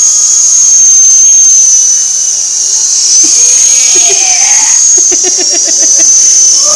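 Helicopter running with a steady, high-pitched whine that wavers slightly in pitch, joined about five seconds in by a rapid beating of several pulses a second.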